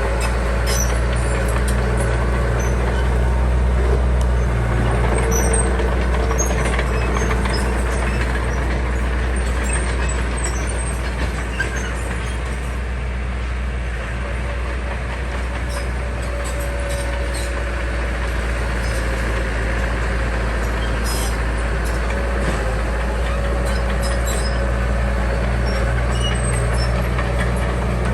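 Heavy diesel engine of earth-moving machinery, a small bulldozer or dump truck, running steadily under work, easing a little midway and picking back up, with scattered small clicks and knocks over it.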